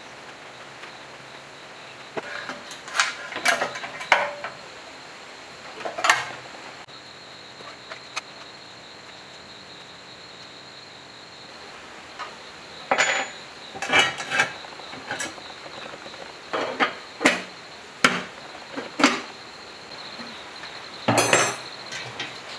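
Scattered clinks and knocks of hand tools and metal parts, a few at a time with quiet gaps between, as wires are joined and a control box is fitted onto a generator. A longer knock with a scrape comes near the end.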